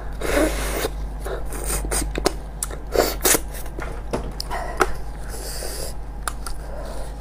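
Close-up eating sounds of a sheep's head being eaten by hand: many sharp wet mouth clicks and smacks, with short hissy bursts of sucking breath near the start, about three seconds in and just before five seconds.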